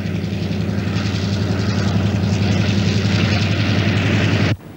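The Ghan train under way: a steady low engine drone over rail and wheel noise, cutting off abruptly near the end.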